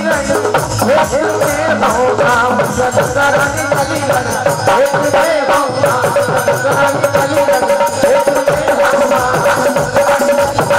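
Live Indian devotional folk music: a barrel drum beats a fast, steady rhythm under a harmonium melody, with a note held steadily through the second half.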